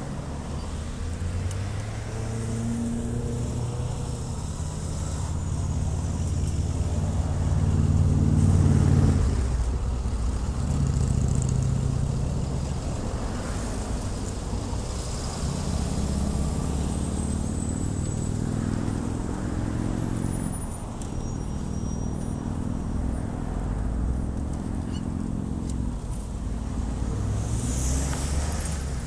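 Road traffic passing, vehicle engines swelling and fading several times, loudest about eight seconds in.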